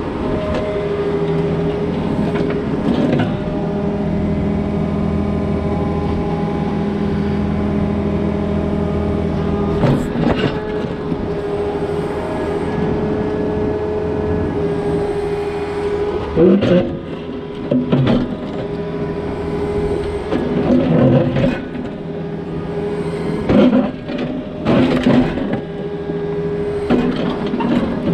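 Takeuchi excavator's diesel engine running steadily under hydraulic work, its bucket knocking and scraping against a concrete catch basin box as it pushes the box over. Several loud clunks come in the second half.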